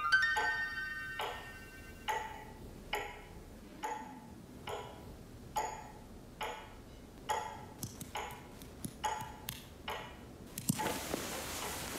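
Clock ticking steadily, a little more than once a second, in a quiet room, with a chime ringing out over the first second. Near the end the ticks come quicker and a soft hiss starts.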